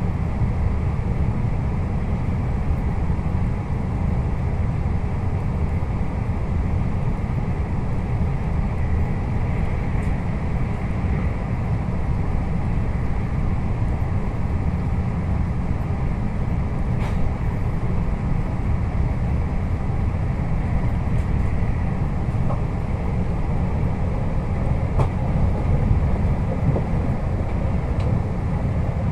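Running noise of a Puyuma express train (a TEMU2000 tilting electric multiple unit) at speed, heard inside the carriage: a steady low rumble of wheels on rail with a few faint clicks.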